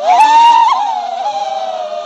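Small FPV quadcopter's electric motors and propellers whining in flight. Several close tones start suddenly, stay high for about half a second, then slide smoothly lower and hold steady.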